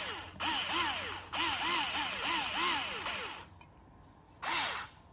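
Drill driving a screw into a ceiling fan's down-rod mount, run in short trigger pulses so the motor whine rises and falls about three times a second. It stops and starts a few times, with two short runs near the end, as the screw snugs tight against the down rod.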